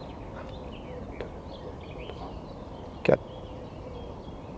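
Faint outdoor birdsong of short chirps over a steady background hiss, with one sharp click about three seconds in.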